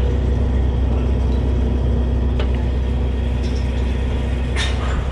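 Drilling rig machinery running: a loud, steady low drone with a constant hum, a light tick about two and a half seconds in, and a short hiss near the end.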